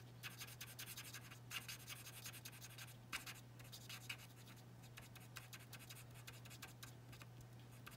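Faint, irregular scratchy strokes of an alcohol marker's tip colouring on cardstock, over a steady low hum.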